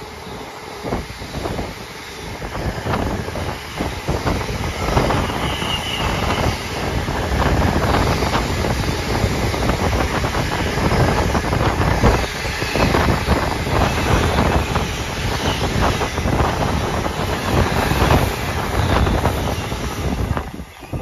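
Container freight train passing close by at speed: a steady rumble and clatter of its wagon wheels on the rails, growing louder over the first few seconds, with wind buffeting the microphone.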